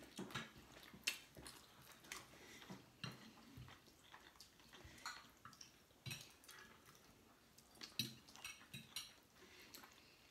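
Faint, irregular clinks and scrapes of forks and spoons on dinner plates, about one every second.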